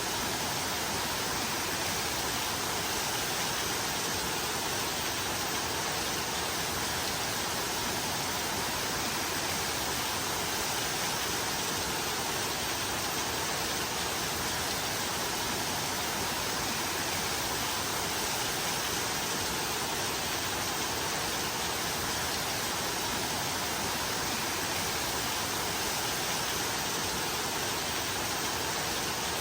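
Rain falling steadily: an even, unbroken hiss with no separate drops standing out.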